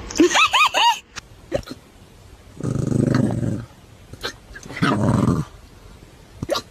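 A dog with hiccups: short sharp hiccup sounds every second or two. It grumbles at them with a quick run of whiny calls at the start and two low growls, each about a second long, near the middle.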